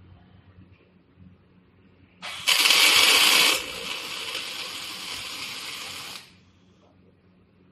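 Automatic welding machine arc-welding a scaffolding crossbar: a steady hiss starts suddenly about two seconds in, loud for about the first second, then quieter, and cuts off after about four seconds in all.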